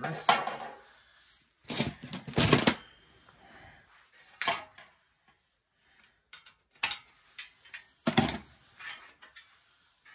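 Sheet-metal casing parts of a power supply being handled and set down: a handful of separate clanks and rattles at irregular intervals, with quiet gaps between.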